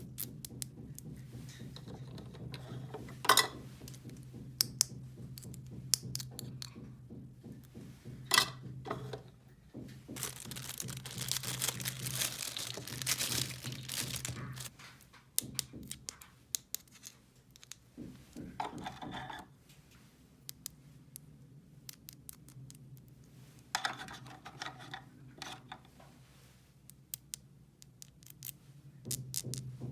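Small plastic toy pieces being handled, with scattered clicks and taps. In the middle there are a few seconds of crinkling and rustling, like packaging being handled. A steady low hum runs underneath for much of the time.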